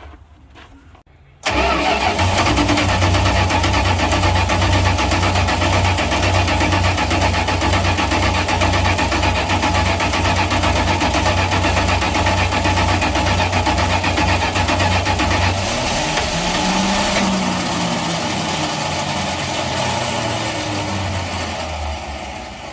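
1976 Dodge D200 truck's V8 engine starting suddenly about a second and a half in, then running steadily. A little past two-thirds of the way through the note changes, the pitch rising and falling, and near the end it fades.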